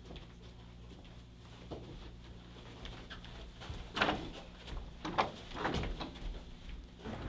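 Wooden door handled and opened: a few sharp clicks and knocks from the latch and door, bunched together starting about four seconds in, over a faint room background.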